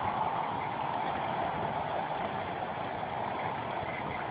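Muddy floodwater rushing across a dirt road in a steady, even rush.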